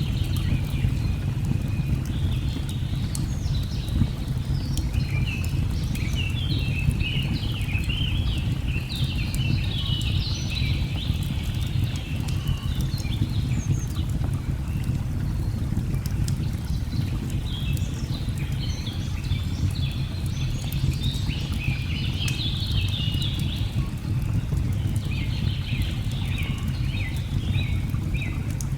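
Mixed nature ambience: a steady low rush of falling water under busy, repeated bird chirping, with scattered sharp crackles from a burning log fire.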